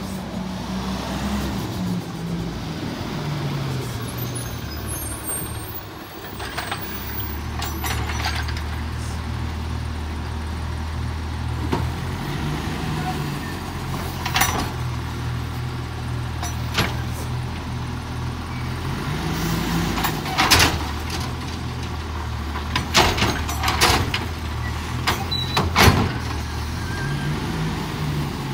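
Autocar ACX garbage truck with a McNeilus Autoreach automated side arm: its engine running as it pulls up and stops, then revving up several times as the hydraulic arm works to reach for and grip a green-waste cart. Sharp knocks and metal clanks come through the last half, loudest a little past the middle and near the end.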